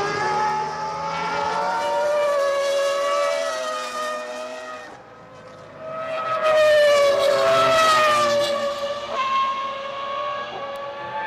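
Formula One cars' 3.0-litre V10 engines at racing speed, their high notes stepping up and falling through gear changes. The sound dips about five seconds in, then one car comes past loud.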